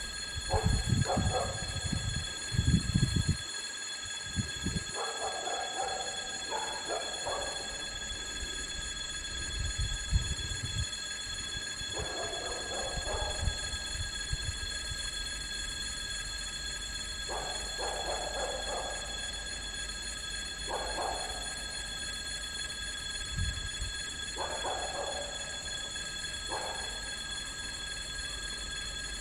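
Electric warning bell of a railway level crossing ringing continuously, a steady high metallic ring. Low rumbles come through near the start and again around ten seconds in.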